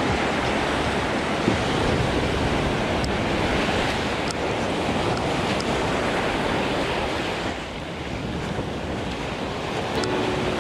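Small waves washing up onto a sandy beach and drawing back, a steady surf wash, with wind buffeting the microphone.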